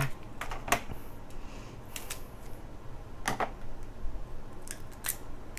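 Close-up eating sounds of crab legs being handled and eaten: about eight or nine scattered sharp clicks and cracks of shell, irregularly spaced, over a faint steady background hum.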